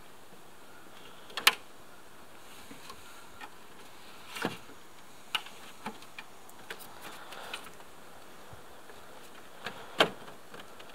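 Subaru Outback's plastic front grille being handled and pressed into its clips: scattered clicks and knocks, with two sharper snaps about a second and a half in and near the end.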